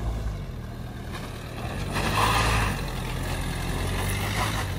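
Dacia Duster's engine working under load as the SUV climbs a steep dirt bank, getting louder about two seconds in.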